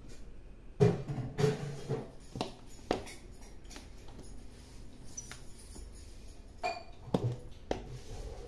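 Small knife scoring a slab of mango leather (aam papad) in a steel bowl, the blade clicking and scraping against the metal bottom in short strokes: a run of about five in the first three seconds and three more near the end.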